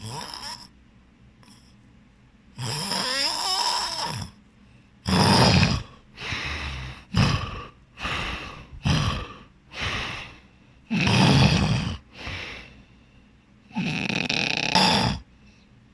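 A person snoring heavily in their sleep: about a dozen loud snores in quick, irregular succession. A longer one about three seconds in has a wavering pitch.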